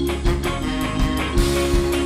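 Ska band playing live, with saxophone and trombone holding notes over organ, guitar and a steady beat.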